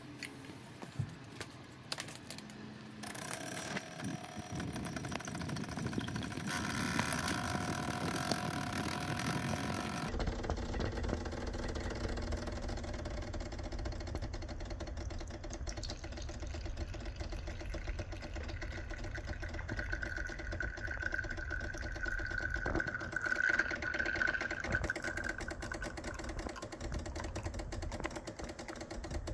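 Decent espresso machine's pump running while it pulls an espresso shot. A few clicks come first, then a steady hum starts about three seconds in. About ten seconds in it turns deeper and louder, with a faint high whine partway through.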